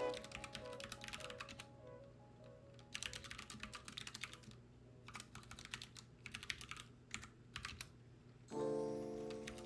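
Computer keyboard typing in quick bursts with short pauses, over soft background music that grows louder near the end.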